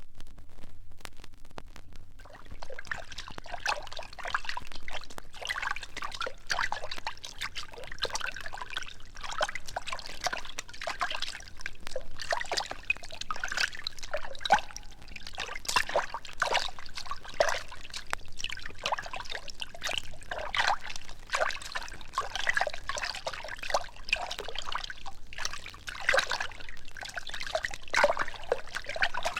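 Liquid bubbling and gurgling: a dense, irregular run of small bubbly pops and splashes that builds up about two seconds in and keeps going.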